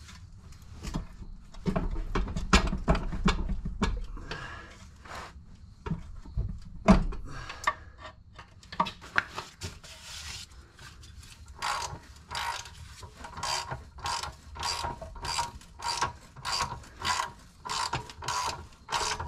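Metal knocks and clunks as a manual transmission is worked down onto a scissor transmission jack, then a regular run of ratcheting strokes, about two a second, from the jack being worked.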